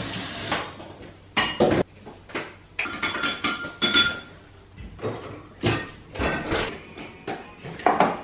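Crockery and cutlery being handled on a kitchen counter, clinking and knocking: a string of short knocks and clinks, some ringing briefly.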